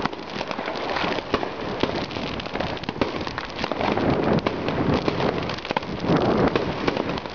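Fireworks going off: a dense, continuous crackle of many small bangs, with a few louder cracks standing out.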